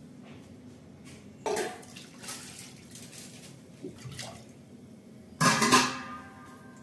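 Water poured from a steel tumbler into an aluminium pressure cooker of dal, splashing in several pours. Near the end comes a loud metal clatter that rings briefly.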